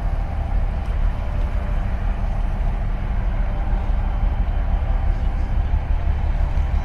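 A boat's engine runs steadily under way, a continuous low rumble with a faint hum above it, mixed with wind and water noise.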